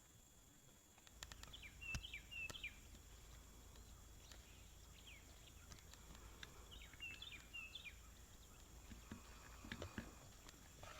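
A songbird singing in the woods: the same short phrase of quick chirps comes twice, a little over a second in and again about five seconds later, over a faint low rumble, with a few soft knocks near the end.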